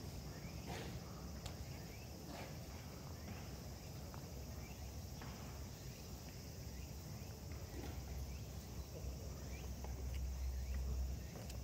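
Quiet outdoor ambience with irregular soft footsteps and light clicks. A low rumble grows louder near the end.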